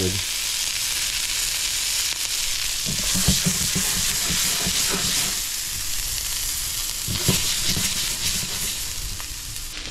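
A yellowfin tuna steak sizzling as it sears in sesame oil in a hot skillet. There are a few knocks and scrapes of a spatula against the pan about three seconds in and again about seven seconds in, as the steak is turned.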